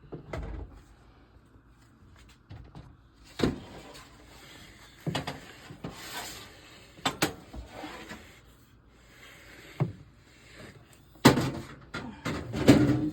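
Kitchen handling noises: a handful of scattered knocks and clatters, as of dishes, lids and utensils being set down and moved on a counter, with light rustling in between.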